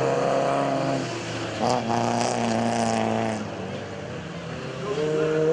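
Off-road race vehicle engines running and revving. A louder engine note cuts in about a second and a half in and dies away, and another rises in pitch near the end.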